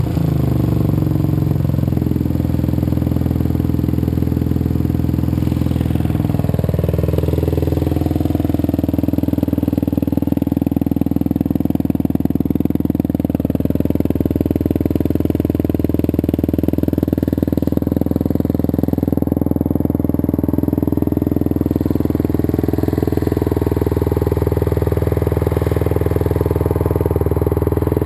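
Kawasaki KLR250 single-cylinder four-stroke motorcycle engine running through a new Big Gun aftermarket exhaust while riding, with jetting the owner calls still slightly off. The revs drop about six seconds in, then hold steady.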